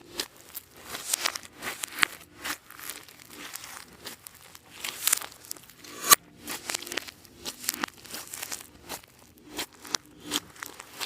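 Clear slime being squished, stretched and folded by hand, giving a run of irregular crackles and small pops, with one sharper snap about six seconds in.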